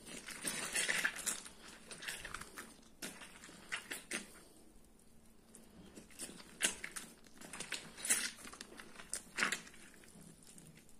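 Juicy mashed orange, garlic, ginger and honey mixture being squeezed in a hand squeezer to press out all the liquid: irregular squishing and crunching strokes, busiest in the first second or so, then separate squeezes with a short lull in the middle.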